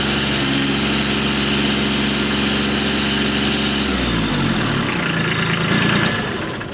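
Kubota tractor's diesel engine running steadily, then slowing in pitch about four seconds in, during an attempt to lift a Beetle frozen in ice that the tractor cannot budge.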